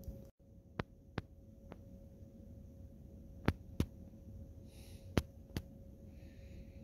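Quiet steady hum of a hotel room's air conditioning, with a thin steady tone in it, and about seven sharp clicks scattered through it.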